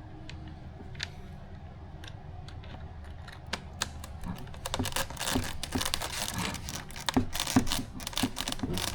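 Small plastic parts and screws being handled, giving quick light clicks and rattles, a few at first and then a busy clatter from about halfway through.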